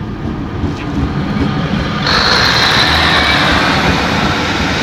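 Class 153 diesel railcars passing close by over a level crossing. The diesel engine drone and the wheels on the rails grow louder, and a high, slightly falling squeal joins about two seconds in.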